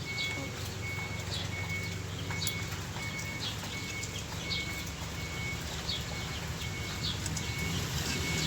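A high electronic beep repeating evenly, just under twice a second, with short, scattered bird-like chirps over a steady low hum.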